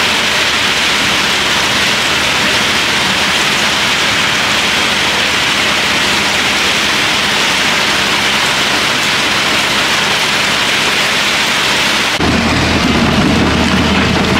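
Heavy rain falling steadily, an even hiss. About twelve seconds in it cuts suddenly to the low, steady running of a Doosan DX140LCA excavator's diesel engine.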